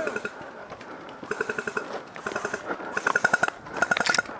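Airsoft electric gun firing fully automatic, in several short bursts of fast, evenly spaced clicks with a motor-driven whirr beneath.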